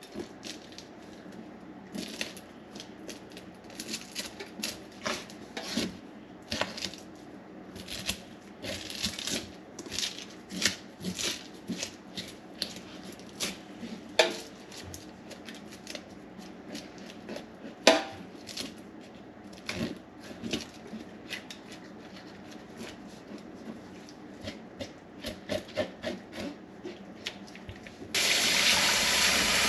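Scales being scraped off whole tullibees (cisco) in a stainless steel sink: a long run of short, irregular scraping strokes with a few sharper clicks. Near the end a faucet is turned on and water runs steadily into the sink, much louder than the scraping.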